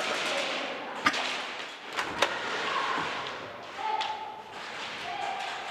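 Airsoft gunfire in an indoor arena: three sharp cracks, one about a second in and two close together about two seconds in, over a steady rushing background.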